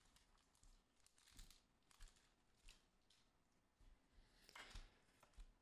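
Near silence, broken by a few faint, short rustles and ticks of trading cards being handled and flipped through.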